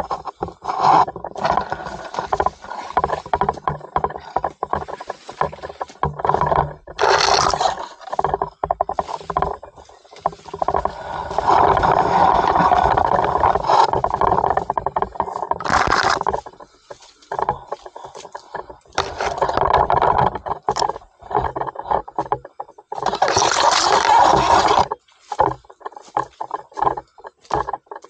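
Irregular scraping and rustling as leaves and branches brush against a pole-mounted 360 camera carried through dense bush, with handling noise on the pole. The longest stretches of rustling come about halfway through and again near the end.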